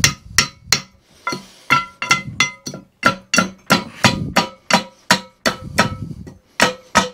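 A rapid run of hammer blows on the steel drive shaft of a mower's rear roller, about three or four a second, each with a short metallic ring, as the shaft is driven out of the roller.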